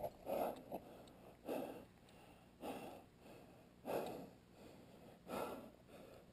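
A person breathing hard, about six heavy breaths spaced roughly a second or so apart.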